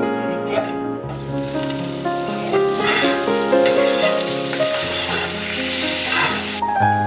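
Butter and chopped vegetables sizzling in a hot cast-iron skillet while stirred with a spatula. The sizzle starts about a second in and cuts off suddenly near the end, under piano music.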